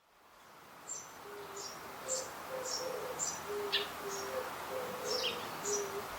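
Birds chirping: short high chirps about twice a second over a soft hiss, with low hooting notes at two alternating pitches beneath, fading in over the first second.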